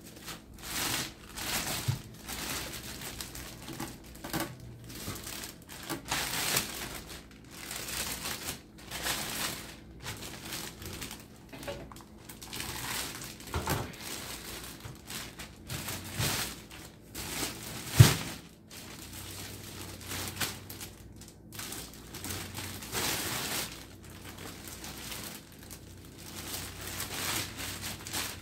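Clear plastic wrapping crinkling and rustling in irregular bursts as it is pulled and bunched around a stainless-steel countertop oven, with a single sharp knock about two-thirds of the way through, the loudest moment.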